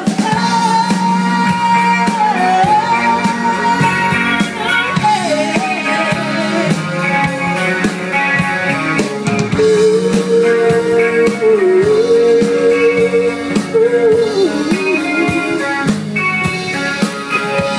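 Live country-rock band playing through a stage PA: a female lead vocal over electric guitar, bass guitar and drum kit.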